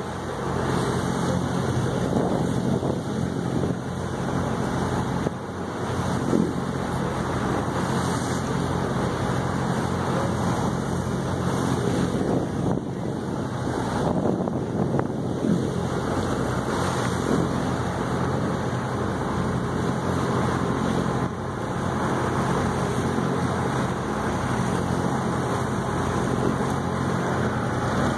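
Fishing boat underway: its engine hums steadily beneath the rushing of water churned up along the hull and in the wake, with wind on the microphone.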